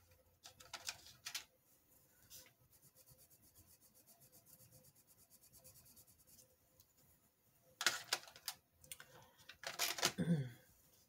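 Colored pencils scribbled on paper in quick, even back-and-forth strokes as colors are swatched, with a couple of louder knocks near the end.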